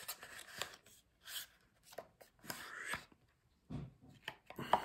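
Cardboard packaging handled by hand: white paperboard trays slid out of their box and rubbed against each other, giving scattered short scrapes and taps with brief quiet gaps.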